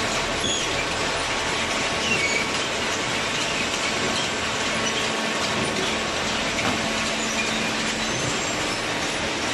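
Vertical hydraulic baler press running: steady mechanical noise with a faint hum and scattered short, high squeaks.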